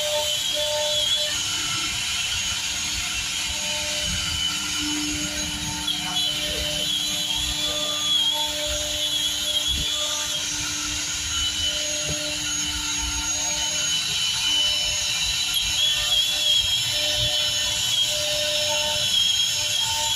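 CNC router spindle running at speed with its bit cutting through 18 mm PVC board: a steady high whine over the hiss and rumble of the cut.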